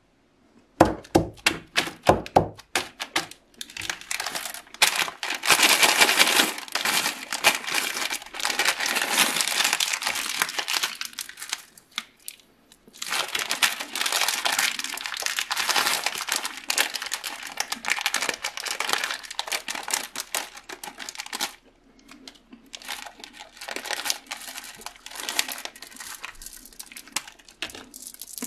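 Plastic candy wrappers crinkling and tearing as they are handled and opened by hand: sharp crackles at first, then long stretches of dense crackling broken by short pauses, softer near the end.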